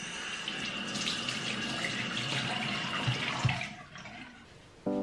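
Bathroom faucet running into a sink with water splashing over hands, a steady rush with a thin whistle in it. It stops about three and a half seconds in, just after a couple of soft knocks.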